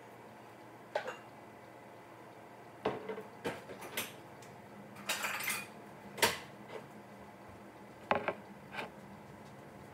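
Household objects being handled: about eight scattered knocks and clatters, a short rattle about five seconds in and the loudest knock just after six seconds, over a low steady room hum.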